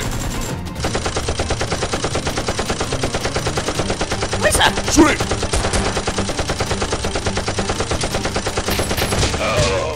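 Sustained rapid automatic gunfire: a long, even stream of shots that starts about a second in and stops just before the end, with a brief shout midway.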